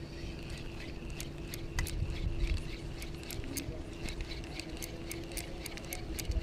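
Spinning reel being cranked to retrieve a jig: a gear whirr with a scatter of sharp clicks.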